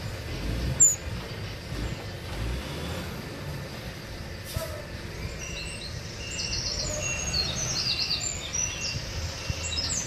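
Small songbirds chirping and twittering, with quick high trills and repeated short notes that grow busier in the second half, over a steady low rumble. A sharp click about a second in.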